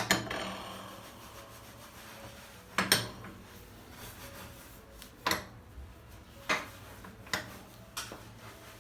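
Dishes and utensils being handled: a handful of separate light knocks and clinks at irregular intervals, with soft rubbing between them.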